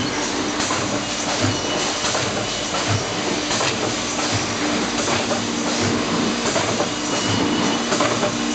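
Bubble film envelope-making line running: a steady machine hum and clatter with a low thump about every second and a half as each cycle seals and cuts envelopes.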